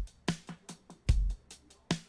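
Background music with drums: sharp percussive hits over a low kick drum, in a steady beat.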